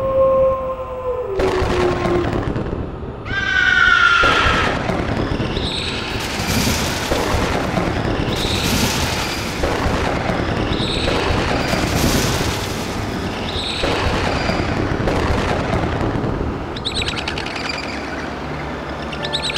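Cartoon wolf howl whose pitch drops as it fades out in the first two seconds. A short high screech follows, then a series of spooky sound effects repeating about every second and a half.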